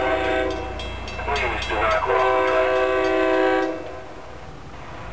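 Horn of an approaching SEPTA electric commuter train sounding two long chord blasts, the first ending about half a second in and the second lasting about a second and a half, warning for the grade crossing.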